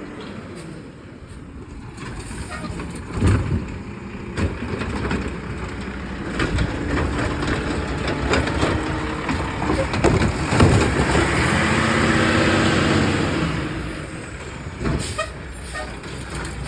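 Garbage truck engine running steadily, with scattered knocks and clanks. A long hiss of air builds about ten seconds in and fades a few seconds later.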